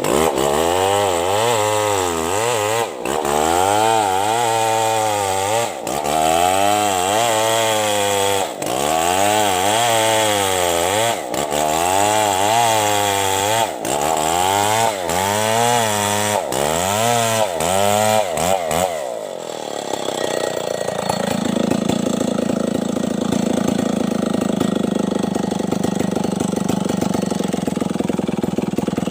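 Stihl 070 two-stroke chainsaw ripping lengthwise through a coconut trunk, its engine pitch rising and dipping every couple of seconds as the chain loads in the cut. About nineteen seconds in, the engine drops to a steady idle.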